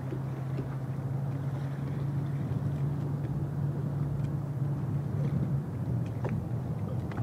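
A boat motor humming steadily on open water, its pitch dropping slightly about six seconds in, with wind and water noise around it.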